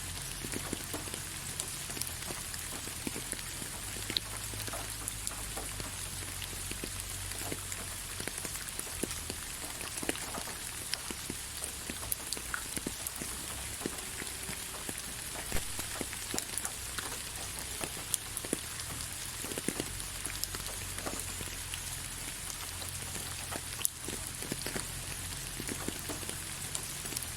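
Steady soft rain: an even hiss with many separate drops ticking on a surface throughout, over a low steady rumble.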